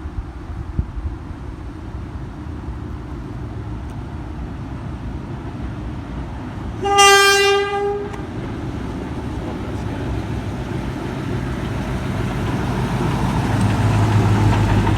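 A train sounds one short blast of a single pitched note, about a second long, seven seconds in, while the rumble of a train grows steadily louder.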